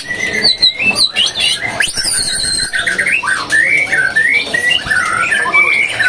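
White-rumped shama singing: a continuous run of loud, varied whistled phrases that rise and fall, broken by quick trills.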